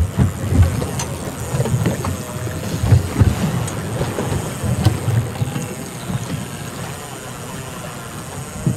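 Wind buffeting the microphone in uneven gusts over the steady running of a boat's outboard motors at trolling speed.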